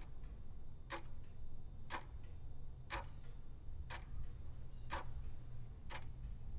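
Clock-tick sound effect ticking once a second over a low steady hum, counting down the seconds of a countdown timer.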